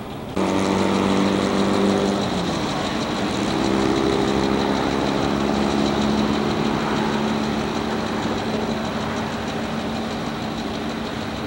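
Diesel locomotive engines running steadily, led by a former N&W EMD GP9R, with a low pitched hum. The sound starts abruptly shortly after the start, and its pitch steps up slightly about two seconds in, as the engines change throttle setting.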